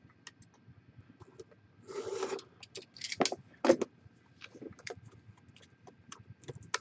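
Hands handling a cardboard trading-card box on a wooden table: scattered light clicks and scrapes of cardboard, with a longer rasping scrape about two seconds in and a couple of sharper scrapes between three and four seconds.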